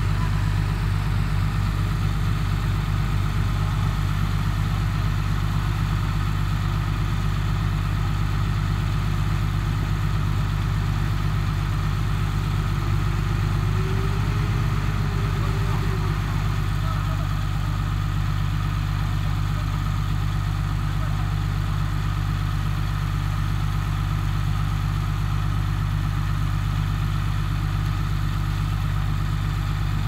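Heavy construction machine's diesel engine running steadily at an even speed, with no revving or change.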